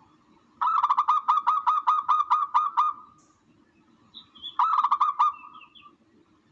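Recorded bird call used as a hunting lure: a rapid run of harsh, honking notes, about five a second for two seconds, then a shorter burst of the same about four and a half seconds in, with a few faint high chirps between.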